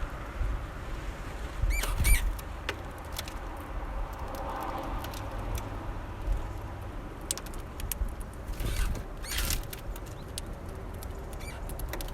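Small finches at a bird feeder: a couple of short calls about two seconds in, over scattered sharp clicks of beaks pecking at seed and the feeder, against a steady low rumble.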